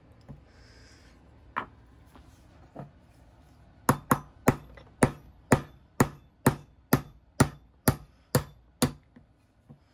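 Small hammer striking a pin punch to drive the pin out of a CZ P-07 pistol slide. Two light taps come first, then a steady run of about a dozen sharp strikes, about two a second, which stops about a second before the end.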